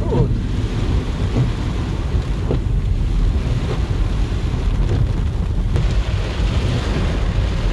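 Heavy rain drumming on a car, heard from inside the cabin as a loud, steady low rumble.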